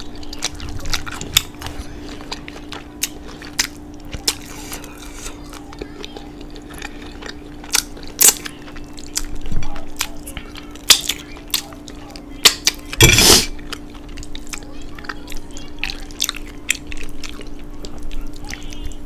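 Close-miked eating sounds: chewing a sticky barbecue rib, with many wet lip smacks and finger-licking clicks. One louder, breathy rush comes about two-thirds of the way through, over a steady low hum.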